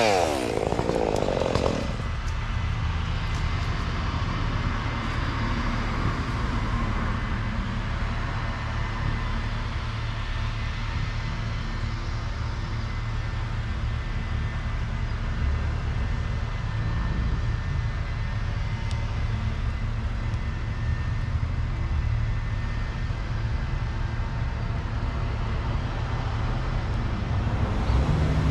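A chainsaw's high, wavering run dies away in the first second or two, leaving an engine idling steadily.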